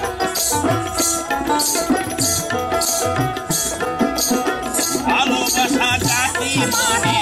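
Bengali folk music: a plucked long-necked lute over a hand drum and steady jingling about twice a second. A wavering singing voice comes in about five seconds in.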